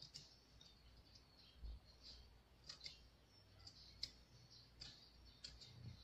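Faint, scattered clicks of a thin carving knife scoring feather lines into a piece of chayote, about eight small ticks spread irregularly.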